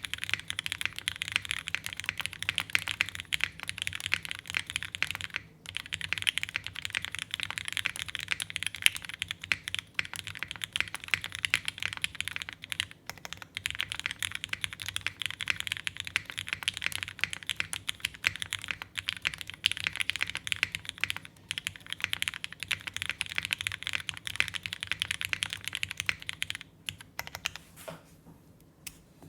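Steady, fast typing on a Geonworks F1-88 mechanical keyboard with O-ring gasket mount, aluminium plate, lubed vintage Cherry MX Black linear switches and GMK Cafe keycaps: a continuous stream of keystroke clacks with a couple of brief pauses, thinning out near the end.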